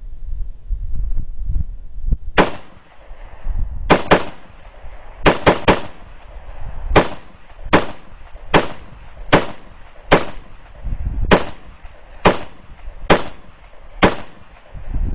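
AR-15 rifle with a 20-inch HBAR barrel firing .223/5.56 semi-automatic, about fifteen shots at an uneven pace, some in quick pairs and triples, each with a short echo. The rifle cycles through the string without a stoppage.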